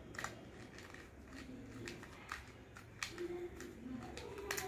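A 2x2 mirror cube being turned by hand: its plastic layers give sharp clicks at irregular intervals as they are twisted, with two clicks close together near the end.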